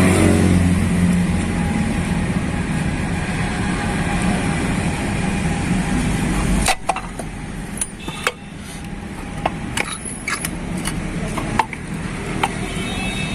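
An engine runs steadily and cuts off abruptly about seven seconds in, followed by scattered sharp metallic clicks and taps.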